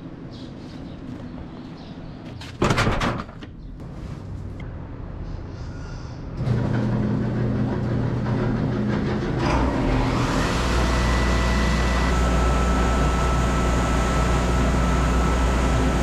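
A vehicle door is shut with one loud thud about three seconds in, then a vehicle engine starts a few seconds later and runs steadily, getting louder and fuller near the middle.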